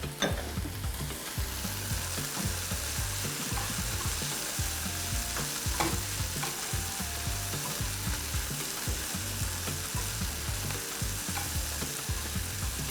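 Kidney and vegetables sizzling as they sauté in a pan on high heat, stirred with a utensil that clicks against the pan a few times.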